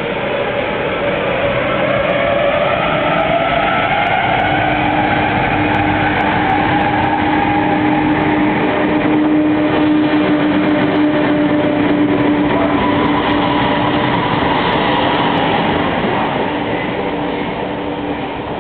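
ČD class 680 Pendolino electric train pulling away from the platform and passing close by as it gathers speed. Its whine rises in pitch over the first few seconds, over steady running and rail noise, and the sound eases a little near the end as the train moves off.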